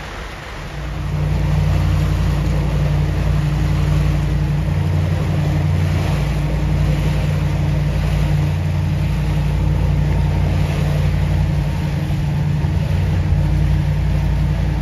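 Motor yacht's inboard engines running steadily underway, a low even drone with wind and water noise over it, coming in about a second in.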